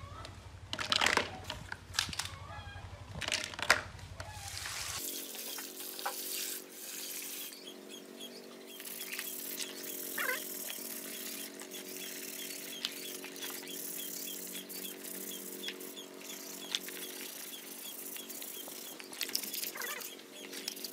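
Plastic bicycle wheels and rubber tyres knocking and clattering as they are dropped into a plastic basin, with two sharp knocks in the first few seconds. About five seconds in, this gives way to soft background music with a steady light tick, over faint sponge scrubbing in soapy water.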